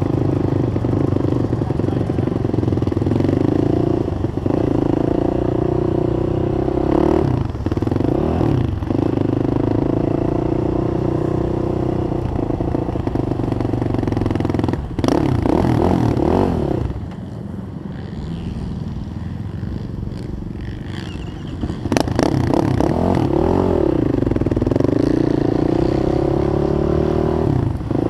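Yamaha YFZ450R quad's single-cylinder four-stroke engine racing, its pitch rising and falling as the throttle opens and closes through the gears. There are sharp knocks at two points, and the engine drops to a quieter, lower run for a few seconds past the middle before revving hard again.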